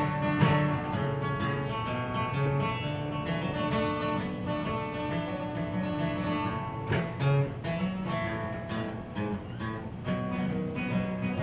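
Solo acoustic guitar playing an instrumental break of a slow country song, strummed chords with melody notes and no singing.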